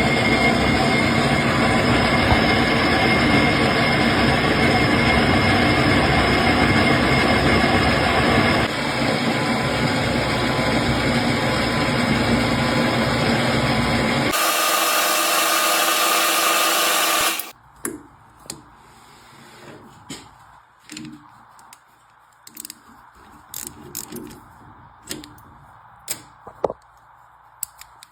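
Metal lathe running while a light facing cut is taken on a brass workpiece, a steady machine noise with a few held tones. About seventeen seconds in it stops abruptly, leaving scattered small clicks and knocks of handling.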